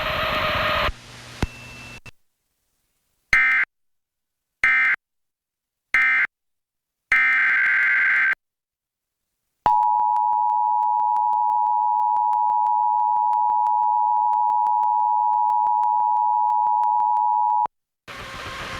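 Emergency Alert System tones: three short screeching data bursts that form the end-of-message code closing the tornado warning, then a longer data burst that heads the next alert. After a pause, the steady two-tone EAS attention signal holds for about eight seconds and cuts off suddenly.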